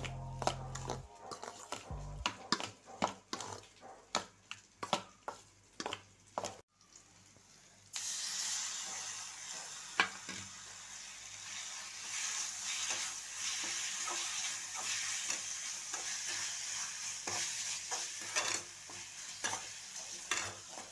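A metal spoon clinking and scraping against a steel bowl in quick, irregular clicks as mashed boiled potatoes are mixed with salt and turmeric. After a short break, sliced onions and green chillies sizzle steadily as they fry in an aluminium kadai, stirred with a spatula.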